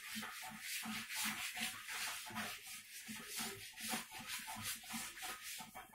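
Felt blackboard duster rubbing chalk off a chalkboard in quick back-and-forth strokes, about three a second.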